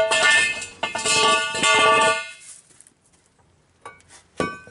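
Seized lug nut on a truck wheel squealing as it is forced round on its stud with a socket and cheater pipe: three drawn-out metallic squeals in quick succession, a sign the nut is giving. A couple of light clicks near the end.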